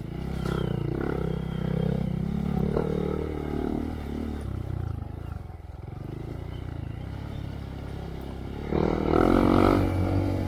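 Honda Monkey's 125 cc single-cylinder engine through a Yoshimura RS3 exhaust with spark arrestor, running under way on a trail and revving up and down with the throttle. It eases off to a quieter, lower running for a few seconds in the middle, then is throttled up louder about nine seconds in.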